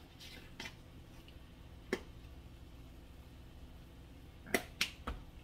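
A few short sharp clicks and taps from spice jars being handled while seasoning a pan: one about two seconds in, two close together near the end, then a low thump. A low steady hum runs underneath.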